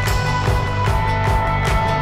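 Background music with a steady drum beat and sustained held notes.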